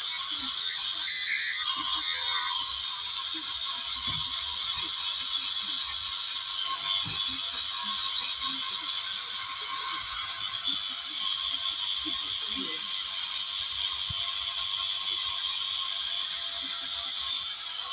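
Steady high-pitched mechanical whirring with a fine rattle, a little louder in the first couple of seconds.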